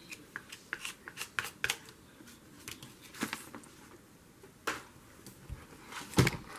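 Paper and card being handled: quick rustles and taps, dense in the first two seconds and then scattered, with a dull thump about six seconds in.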